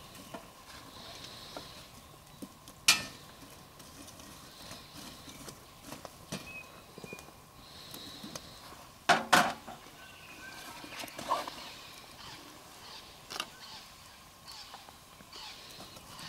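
Sharp metal knocks and clanks, a few scattered ones with the loudest about nine seconds in, as burning wood in a steel firepit is shifted with tongs and a coffee percolator is set down on the grate.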